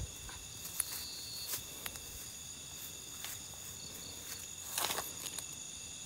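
Night insects, crickets among them, chirring steadily in a high tone, with a few soft rustling footsteps in grass, the loudest cluster about five seconds in.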